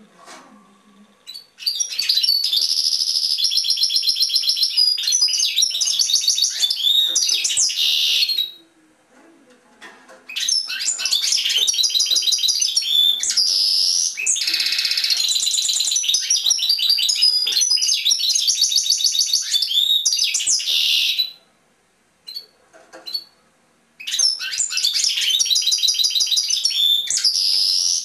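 European goldfinch singing: three long bouts of rapid, high twittering song full of quick trills, broken by short pauses.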